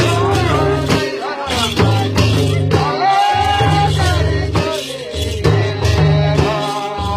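Folk dance music: madal hand drums beating a steady rhythm, with a singing voice over it.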